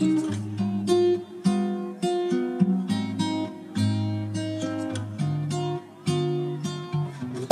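Background music: an acoustic guitar picking notes and chords, each note struck and left to ring.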